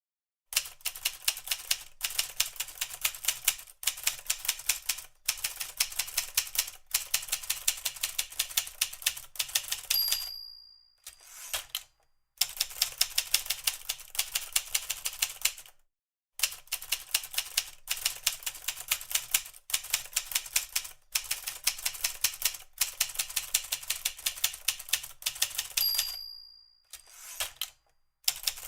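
Typewriter being typed on in quick runs of key strikes with short pauses. The margin bell dings twice, about ten seconds in and near the end, and each ding is followed by a short carriage-return slide before typing resumes.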